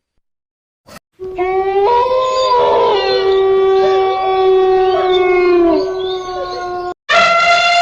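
Several canines howling together: long, held, overlapping howls at different pitches, beginning about a second in after a short click. A fresh howl starts just before the end.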